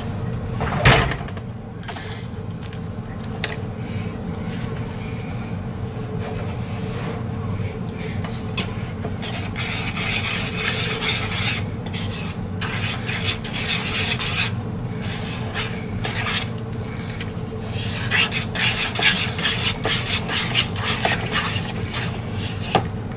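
Wire whisk scraping and clicking rapidly against a plastic mixing bowl, beating milk into flour for a thick batter, over a steady low hum. A single knock sounds about a second in.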